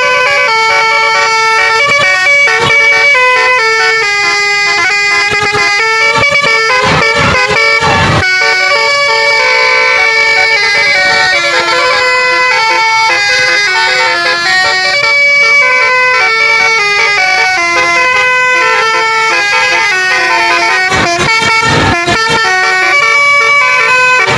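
Multi-tone telolet bus horn playing a tune, several horn notes sounding together and changing in quick steps.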